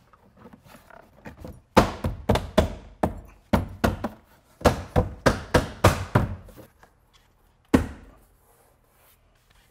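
Hands thumping a MINI Cooper's plastic interior door trim panel to seat its clips in the door. A quick run of a dozen or so sharp thumps starts about two seconds in, and one last thump follows a second later.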